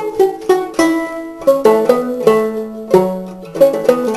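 Five-string banjo played clawhammer style: a run of sharply plucked, ringing notes, with left-hand pull-offs worked into the melody.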